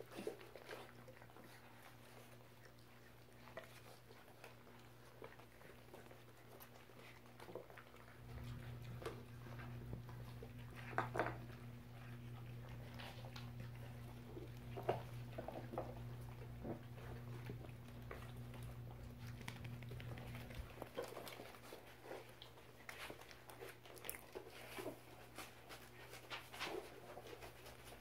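A litter of five-week-old puppies eating and moving about: faint scattered chewing, clicks and small puppy noises over a steady low hum. A low rumble runs through the middle stretch.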